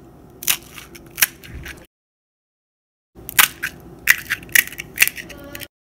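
Crisp fried puchka (pani puri) shells cracking and crunching as fingers press into them. There are several sharp cracks in two short bursts, each bursting in and cutting off abruptly.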